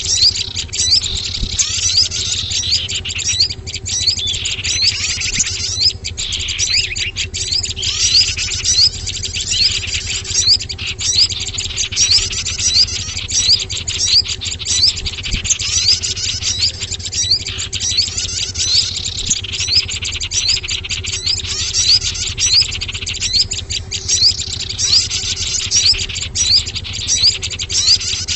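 Dense mix of small songbirds' high chirps and twitters, a recorded lure call (suara pikat) for small wild birds. The clusters of notes recur every few seconds over a steady low hum.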